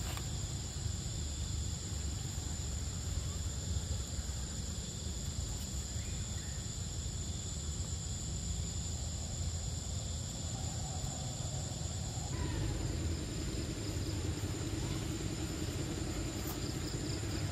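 Outdoor ambience: a steady high-pitched insect drone over a low rumble. About two-thirds of the way through, the sound changes and a low pulsing hum joins.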